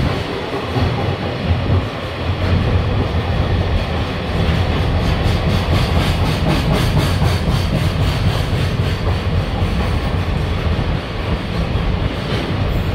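Freight train of Koki container flatcars passing at speed: a steady low rumble of steel wheels on rail, with a rhythmic clickety-clack of wheels over the rail joints, clearest in the middle.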